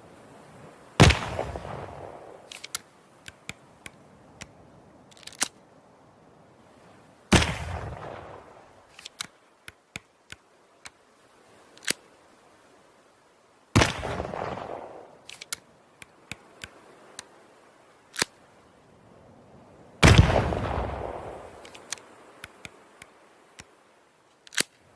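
Flintlock pistol firing four times, about six seconds apart, each shot a sharp bang with a long fading echo. Short small clicks come between the shots.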